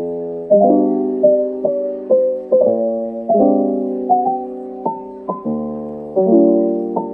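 Background music: a soft piano tune of gently struck notes and chords, each note fading before the next.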